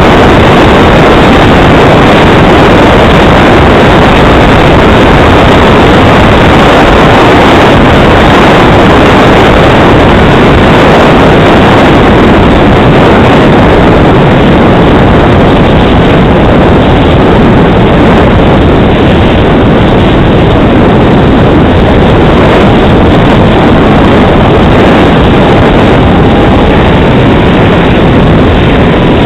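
Model jet engine running with a loud, steady rushing noise; near the end a faint whine rises and then falls in pitch.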